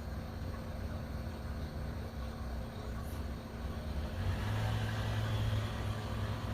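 Steady low mechanical hum, like a motor running, that grows louder about four seconds in and holds there.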